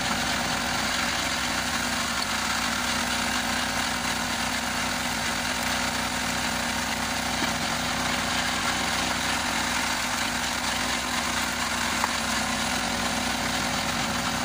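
Walk-behind tractor engine running steadily, driving a homemade screw-cone log splitter as logs are pushed onto the turning cone.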